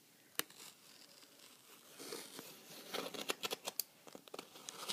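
Cutting open the tape and cardboard of a shipping box: faint scraping and rustling with a run of sharp clicks, busier in the second half.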